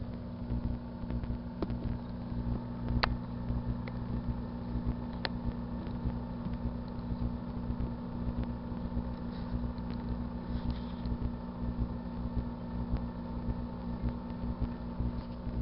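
1984 Kenmore microwave oven running on a heating cycle: a steady electrical hum over a low rumble, with a couple of sharp ticks about three and five seconds in.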